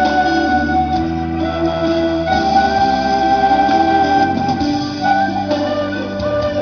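Flute music: several long held notes overlapping and changing every second or two, over a steady low drone.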